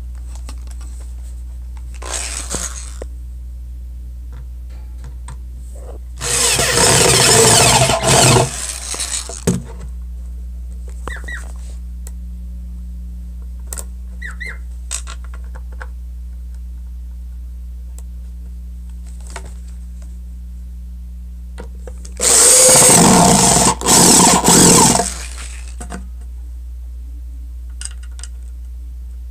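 Power drill whirring in two bursts of about two to three seconds each, one a quarter of the way in and one near the end, each broken by a brief stop, as it drives screws to close up a subwoofer's enclosure. A steady low hum runs underneath, with a few light clicks between the bursts.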